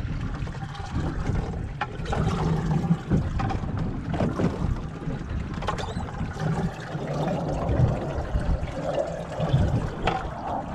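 Landing net sloshing and splashing through the water in a boat's livewell, with a few light knocks. Wind buffets the microphone throughout.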